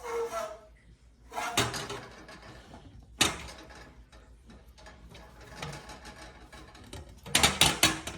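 Handling noises of hand-held tube repair pliers working a copper pipe: scrapes and clunks, with one sharp click about three seconds in and a louder burst of rattling near the end.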